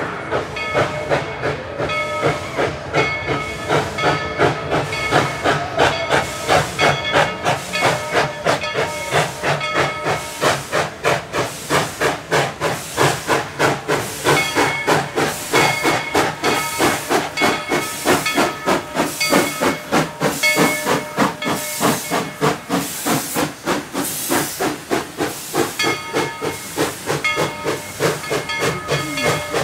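Steam locomotive working past close by, its exhaust chuffing in a steady rhythm of about three beats a second, with steam hissing.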